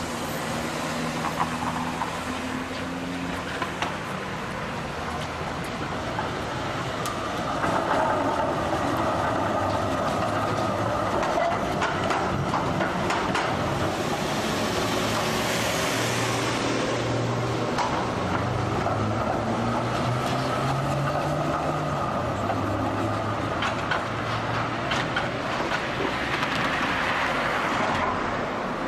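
Street traffic at a tram junction: cars driving across the tracks while an electric tram runs nearby, with scattered sharp clicks of wheels over the rail crossings.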